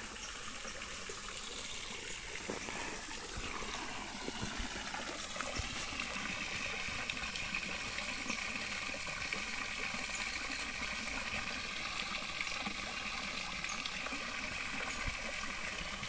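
Water spouting from a pipe and splashing steadily into a small fish pond, growing a little louder about five seconds in.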